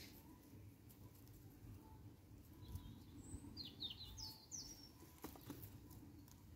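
Near silence, broken by a bird chirping a quick run of about five short falling notes a little past the middle.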